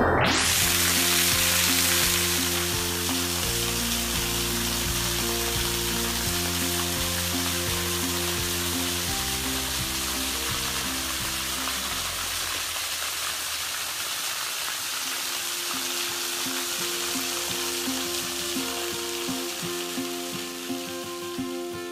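Waterfall spilling onto rock, a steady hiss of falling water that slowly eases, with background music of held notes and changing chords underneath.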